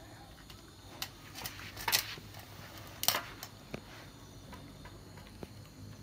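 A dog eating from a bowl: a string of sharp clicks and clatters against the bowl, loudest about two and three seconds in.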